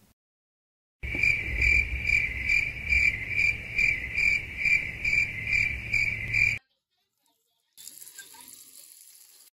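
Cricket chirping sound effect: a steady, evenly pulsing chirp, a little over two chirps a second, that starts and cuts off abruptly. After a short silence, tap water runs into a bowl with a quiet, high hiss.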